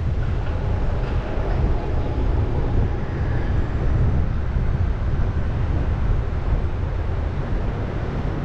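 Steady low rumble of wind buffeting and road noise on the microphone of a camera mounted on the hood of a moving car, with city traffic behind it.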